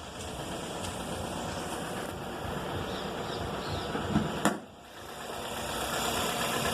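2004 Toyota Corolla engine idling with its persistent noise, which a full rebuild with a new timing chain, chain tensioner and VVT valve has not cured. Two sharp clicks come about four seconds in, and the engine sound grows louder near the end.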